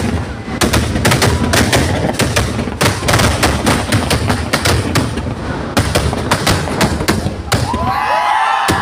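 Fireworks going off overhead in a rapid, irregular run of bangs. The bangs stop about eight seconds in, and crowd voices and cheering take over.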